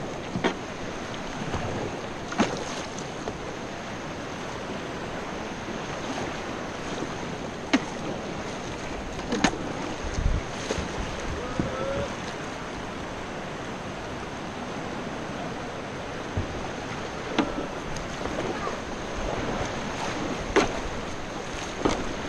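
Steady rush of river rapids heard from inside a whitewater kayak, with a handful of sharp splashes from the paddle strokes spread through.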